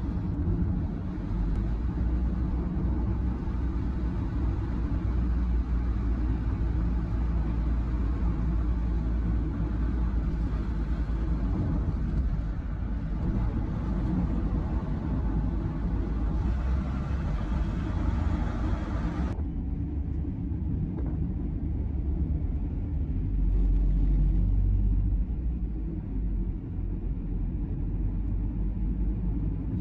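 Steady low rumble of road and engine noise inside a moving car's cabin. About two-thirds of the way through it suddenly turns duller, losing its hiss.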